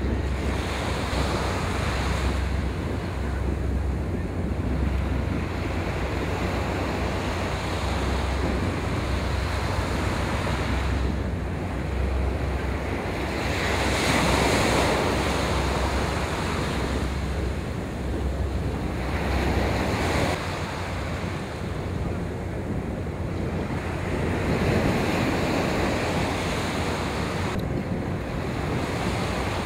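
Small waves washing onto a sandy beach, swelling and easing every few seconds, with wind rumbling on the microphone through most of it.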